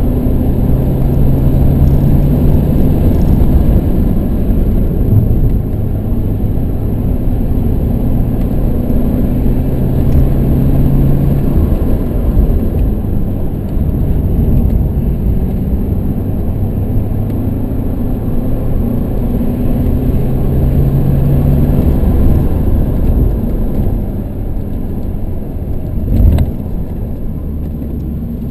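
BMW 118d's four-cylinder turbodiesel engine heard from inside the cabin under way, its note holding steady for stretches and then dropping, over steady road and tyre noise. A single sharp thump near the end.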